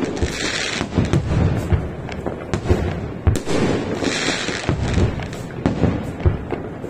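Aerial firework shells bursting in quick, irregular succession: a string of bangs and thuds, with two spells of high hiss near the start and about four seconds in.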